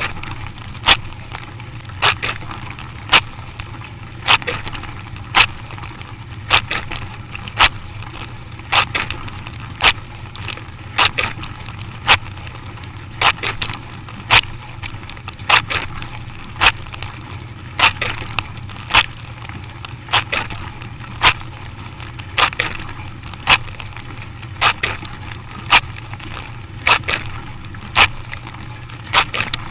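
A machine clacking sharply about once a second, some strokes doubled, over a steady low hum.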